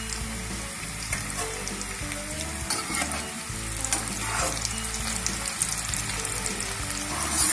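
Pieces of maida dough (shakarpara) deep-frying in hot oil in a kadhai. A freshly added batch is bubbling hard, giving a steady sizzle with fine crackling throughout.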